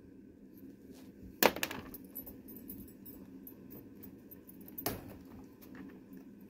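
Light metallic clinking and jingling as a dog walks into a wire crate. There is a sharp clank about a second and a half in, then a brief rattle, and a second clank near five seconds.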